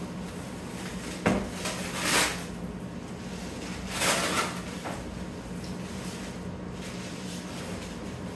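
White slot-car track sections being lifted and slid out of a cardboard shipping box: one sharp knock about a second in, then two scraping, rustling swells around two and four seconds in. A steady low hum sits underneath.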